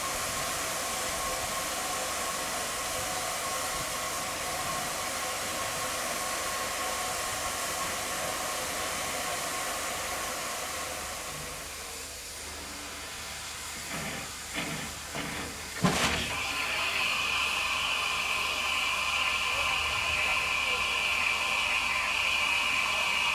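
Steam locomotive hissing steadily. About two-thirds through come a few short knocks and a sharp bang, after which a higher-pitched steam hiss carries on.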